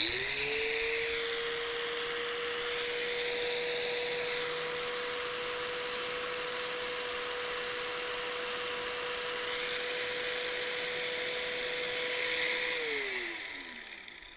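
Harbor Freight corded angle grinder with a cutting disc, switched on and spinning up to full speed within about half a second. It runs at no load, about 9,500 RPM, as a steady whine, then is switched off near the end and winds down, its pitch falling as it fades.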